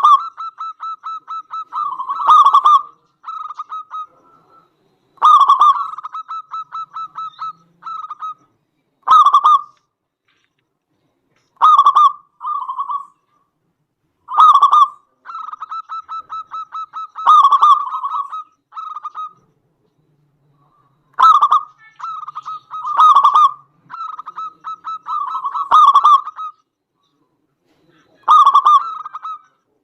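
Zebra dove (perkutut) cooing loudly in repeated phrases, each a strong opening note followed by a fast run of short staccato coos, coming every two to three seconds with a longer gap a little past the middle.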